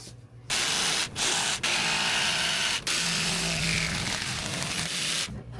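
A power tool running in long stretches with three short stops, trimming a wall panel board so that it will fit.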